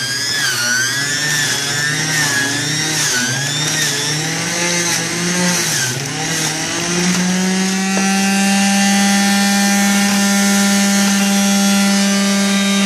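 Omega MegaMouth centrifugal juicer's motor running, its pitch wavering up and down for about six seconds as apple, cucumber and dandelion greens are pushed through, then settling to one steady pitch.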